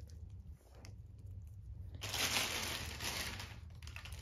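Plastic poly bubble mailer rustling and crinkling as it is handled, starting about two seconds in and lasting about a second and a half, after a few faint clicks.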